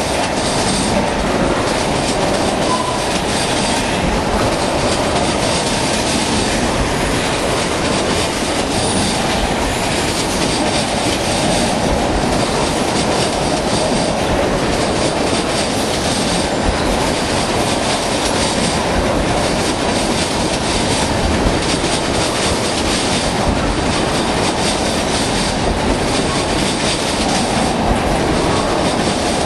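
Freight train of tank cars rolling past close by: a steady rumble of steel wheels on rail, with rhythmic clacking as the wheels pass over the rail joints.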